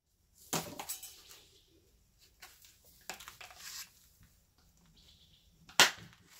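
Plastic packaging clips on the foam wheel covers snapping off, three sharp snaps about two and a half seconds apart, the loudest near the end, with faint rustling of foam in between.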